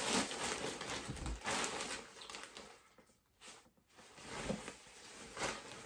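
Clear plastic poly bag crinkling and rustling as a garment is pulled out of it, pausing about three seconds in, then softer rustling of fabric and plastic.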